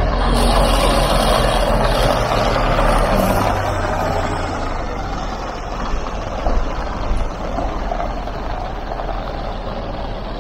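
Midland Red single-deck bus engine running as the bus drives slowly past at close range, loudest in the first few seconds and fading as it moves away, with a few louder knocks partway through.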